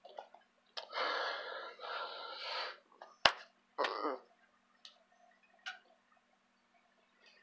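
Body and breath noises of a person signing: a breathy rush for about two seconds, a sharp slap of hands meeting about three seconds in, then a short throaty sound and a few faint ticks, over a faint steady electrical hum.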